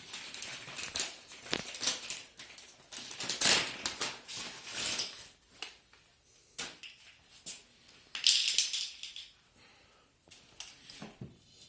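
Hands working with plastic plumbing fittings and parts: scattered clicks and knocks, with two bursts of rustling, about three seconds in and about eight seconds in.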